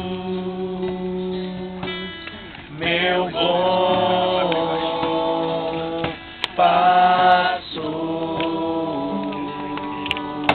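Worship hymn sung with acoustic guitar accompaniment, the voices holding long notes.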